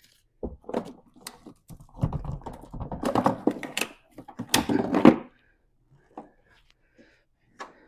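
Car battery being worked loose and lifted out of its tray in the engine bay: a busy run of knocks, clicks and scraping for about five seconds, then a few scattered clicks.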